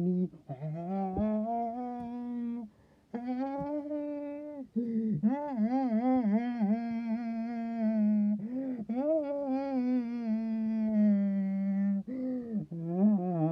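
A person humming without words in several long held notes broken by short pauses, with a wavering, warbling stretch a few seconds in.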